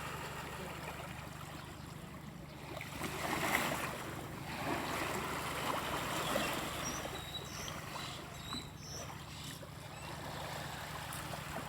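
Water sloshing and lapping against a small boat, over a steady low hum.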